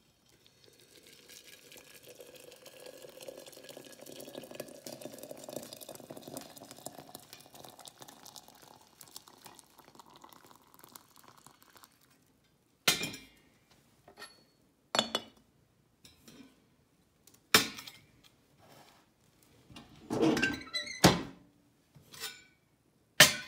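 Hot water poured from a metal kettle into a glazed ceramic teapot: a steady splashing stream for about twelve seconds whose pitch rises as the pot fills. Then come several sharp clanks and knocks of metal and china as the kettle and lids are set down on the range.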